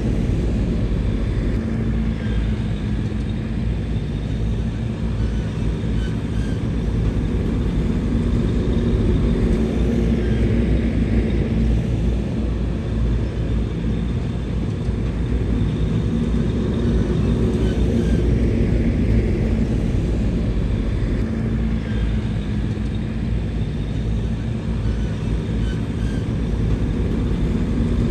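A bulldozer's diesel engine running steadily as it works, low and even throughout.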